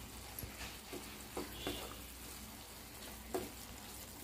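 A spatula stirring ridge gourd fry in a pan as the spice powder is mixed in. It is faint, with a few short scrapes over a soft sizzle.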